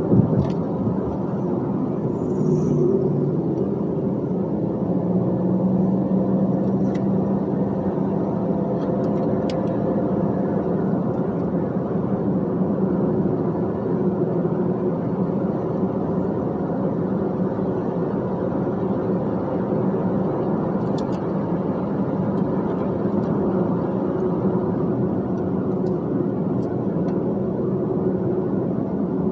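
Dump truck's diesel engine running with tyre and road noise while cruising at steady speed: a constant drone with a low engine hum.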